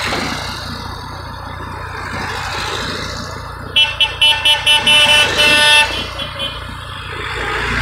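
Classic Volkswagen Beetles and vans driving past with a steady low engine rumble. About four seconds in, a car horn gives a quick string of short toots and then one longer blast.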